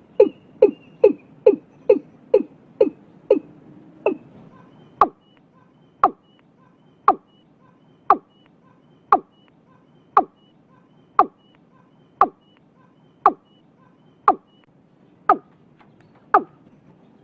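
Watercock (cúm núm) calling: a series of short, deep, hollow notes. They come quickly at first, about two or three a second, then slow to about one a second from around five seconds in.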